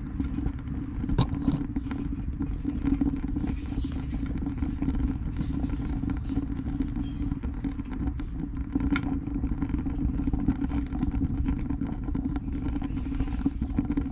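Gravity-fed wood-pellet rocket burner of 304 stainless steel burning hard: the steady low rumble of its draft, with a few sharp crackling pops from the burning pellets.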